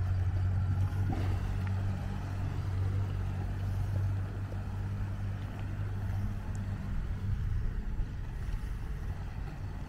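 Small motorboat's outboard motor running with a steady low drone as the boat pulls away, growing slightly fainter near the end.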